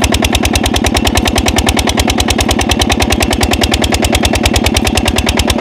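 Diesel pump engine running steadily at speed, its firing strokes a rapid, even knocking at about ten beats a second. It is running dual-fuel on LPG gas fed into the air intake with a little diesel, while driving a tube-well water pump.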